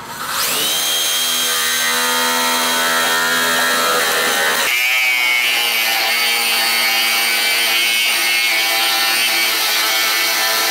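Corded electric drill spinning up and running steadily as a wide bit bores a finger hole into an oak board. The motor's pitch rises as it starts, and the tone shifts a little about halfway through.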